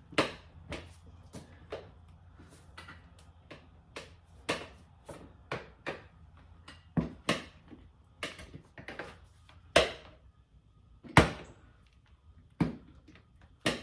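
Irregular knocks and clicks from a tire iron and a manual motorcycle tire changer while the tire bead is hooked and levered over the wheel rim. The knocks come about twice a second, with a few louder ones near the end.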